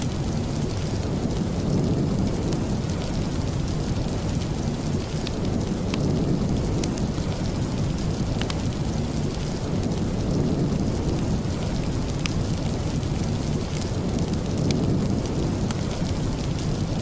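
Steady rain with a deep, low rumble, dotted with scattered sharp ticks.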